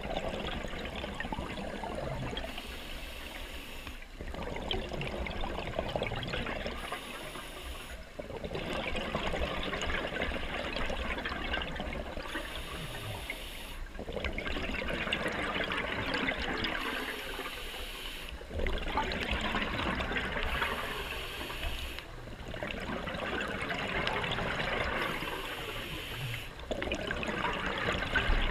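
A scuba diver's regulator breathing heard underwater: long rushes of exhaled bubbles, each lasting several seconds, broken by short pauses in a slow, regular breathing rhythm.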